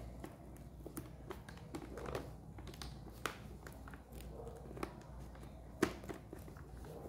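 Hands working on a motorcycle helmet's padding and intercom microphone parts: scattered light clicks, taps and rustling, the sharpest click about six seconds in.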